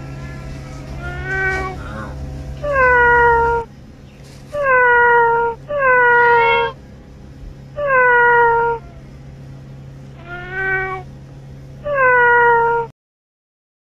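Domestic cats meowing over and over: about seven loud meows a second or so apart, each dropping in pitch at its end, the first one quieter. A steady low hum sits under the first few seconds, and the sound cuts off about a second before the end.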